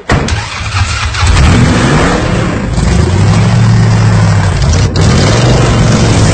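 Car engine revving hard, starting suddenly, its pitch climbing over the first two seconds and then held high, with a brief dip about five seconds in.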